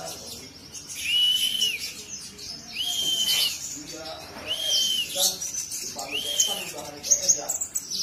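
Caged kolibri ninja sunbird singing: high, quick twittering chirps mixed with four drawn-out whistled notes, each rising, holding and dipping, coming about every one and a half to two seconds.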